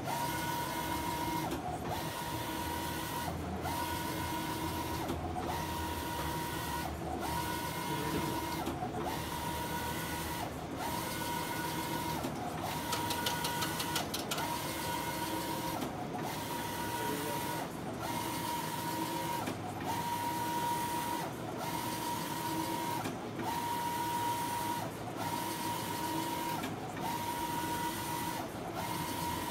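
Wide-format inkjet printer at work, its print-head carriage sweeping back and forth across the paper: a steady whine on each pass, broken by a short pause about every two seconds. A fast, even ticking is heard briefly about halfway through.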